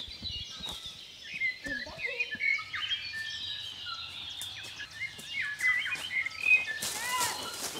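Forest birds calling, many short overlapping chirps and whistles, with a brief noisy burst near the end.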